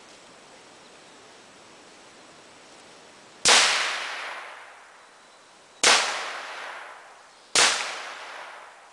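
Three gunshots, the first about three and a half seconds in, the next two coming about two seconds and then under two seconds apart, each followed by an echo that dies away over a second or so.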